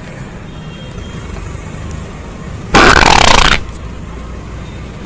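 A loud fart sound effect, lasting a little under a second, about three seconds in, over steady low background noise.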